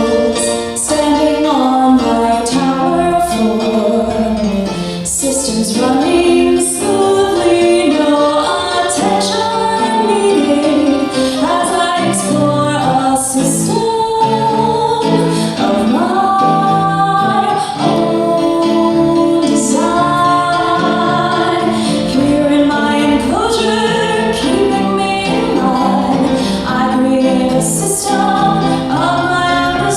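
A song from a live stage musical: singing with music accompanying it, held melodic notes moving from one pitch to the next.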